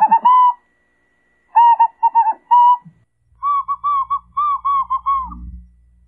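Morse code whistled by mouth: short and long notes at one pitch, sent in three groups with pauses between, each note wavering slightly in pitch.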